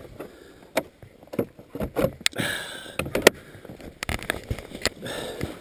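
Scattered clicks, knocks and rustling of hands rummaging at a snowmobile's plastic side-panel storage cubby, with a short squeak about halfway through.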